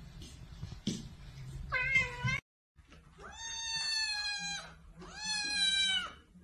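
Kittens meowing: a short mew about two seconds in, then two long, drawn-out meows from a fluffy kitten, each more than a second long.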